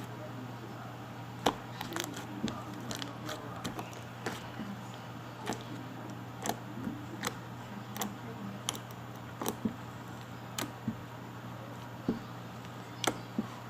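Slime being squeezed and pressed, giving irregular sharp clicks and pops about once or twice a second over a steady low hum.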